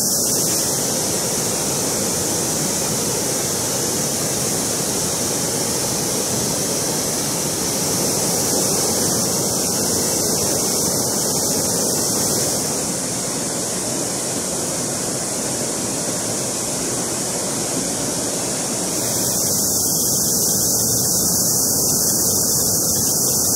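Water rushing down Giessbach Falls and over its rocky cascades, a steady noise that shifts slightly in level about halfway through and again near the end.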